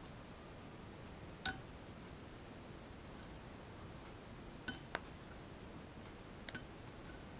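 A few sharp ticks as metal tweezers pick at the LEDs on an LED strip lying on a hot clothes-iron soleplate to desolder them: one about a second and a half in, a close pair past the middle and another pair near the end, over a faint steady hiss.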